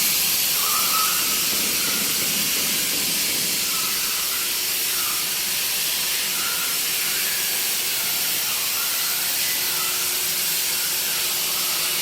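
CNC plasma cutter's torch hissing steadily as it cuts.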